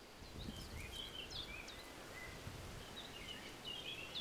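Faint outdoor ambience: small birds chirping in short, scattered calls over a low, quiet rumble.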